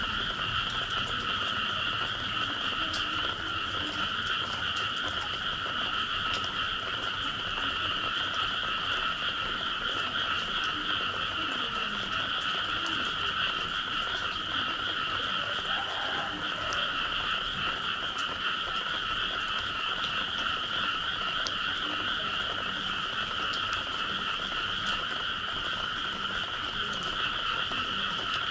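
A dense chorus of frogs calling after rain, the many calls merging into one steady, unbroken high-pitched sound with fainter lower calls beneath it.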